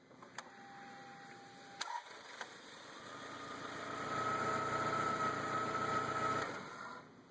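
A car is started for a battery load test: a few clicks and a short steady tone, then the engine starts and runs for a few seconds with a steady whine, and is switched off near the end.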